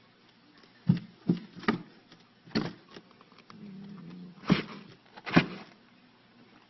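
Six sharp knocks or taps at irregular intervals, with a brief low hum about halfway through.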